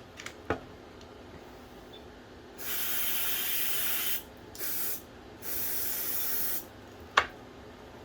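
Aerosol can of chlorine-free brake cleaner spraying onto a bicycle brake in three hissing bursts: a long one, a short one, then another long one, flushing worn pad compound and grime off. A sharp click follows near the end.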